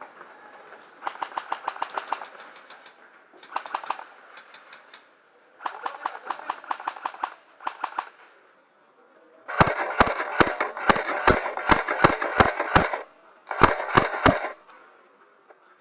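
Airsoft guns firing rapid full-auto bursts, about ten shots a second, in several short bursts with pauses between. From about ten seconds in the bursts are louder and longer, with deep thuds about three times a second under the rattle.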